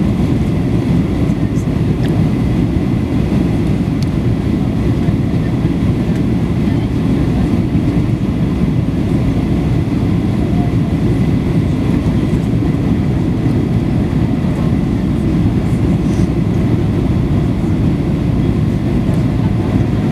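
Steady low cabin roar of a Boeing 737-800 heard from a rear window seat: its CFM56-7B turbofans and the airflow over the fuselage, with a faint steady high whine above the rumble.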